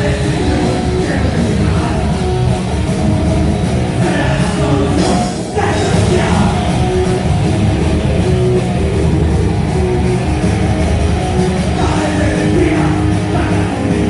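Heavy rock band playing loud, with a brief dip in the sound about five and a half seconds in.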